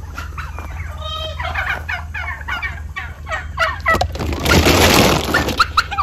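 Farmyard poultry calling: a run of short chicken clucks and calls, with a turkey gobbling in quick pulses about a second in. A loud rustling noise takes over for the last two seconds.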